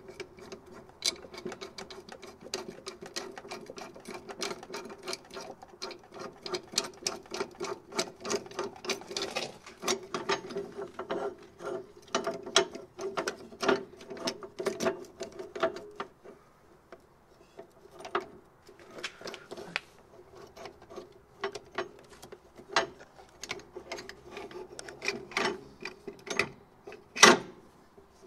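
Hand ratchet wrench clicking in fast runs of strokes with short pauses between them, and a single sharp knock near the end.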